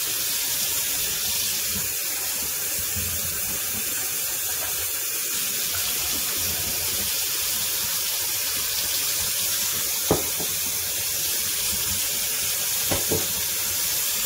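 Kitchen faucet running hot tap water in a steady stream into a stainless steel sink. A sharp knock sounds about ten seconds in and two lighter ones near the end.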